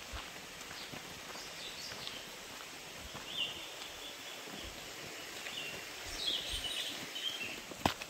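Footsteps on a leaf-littered dirt trail, soft and irregular, over a steady forest hiss. Birds call: a held high note about three and a half seconds in and a busier chattering call about six seconds in. A sharp click comes near the end.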